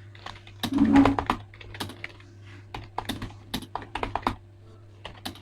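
Typing on a Zebronics computer keyboard: a quick, irregular run of keystroke clicks, entering a timed typing-test passage.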